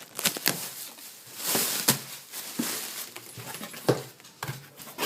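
Bubble wrap and packing being handled and crinkled as it is pulled out of a cardboard box, with scattered sharp crackles and clicks.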